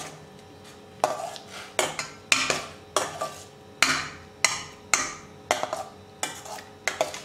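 A ladle stirring chopped pineapple in water in a stainless steel pan: one knock at the start, then, about a second in, a run of scraping knocks against the pan, about two a second, each with a short ring.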